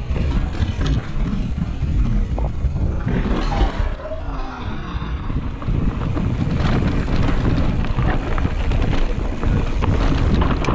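Mountain bike descending a rocky dirt trail: wind rushing over the camera microphone, with tyres crunching over loose rock and the bike rattling in many short clicks.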